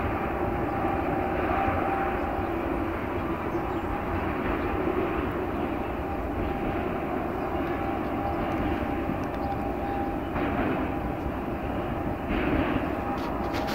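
A steady, distant engine drone with a constant hum in it, over a fluttering low rumble.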